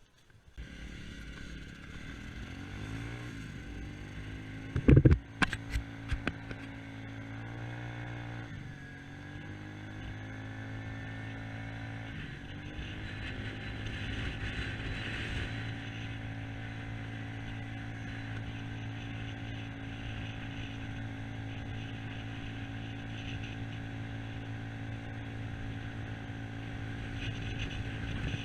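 A small engine running steadily, with its pitch rising and falling briefly twice in the first nine seconds. A few sharp knocks come about five seconds in.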